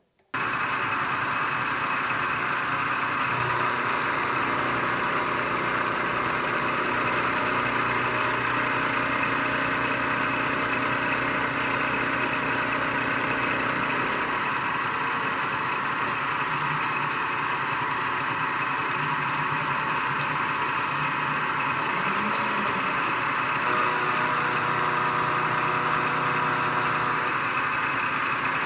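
Milling machine running with an end mill taking a light side cut, about five thousandths, along a 1018 steel block: a steady, unbroken machining sound.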